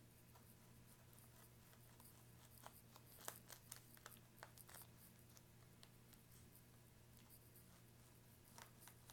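Near silence with a low steady hum, broken by a few faint scratches of a marker drawing lines across a mesh wig cap, a cluster a few seconds in and a couple more near the end.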